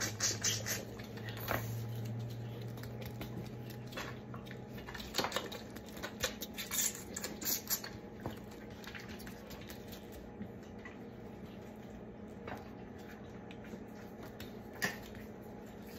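Lambs sucking at bottle teats: an irregular scatter of wet smacking clicks and slurps, with a low steady hum under the first few seconds.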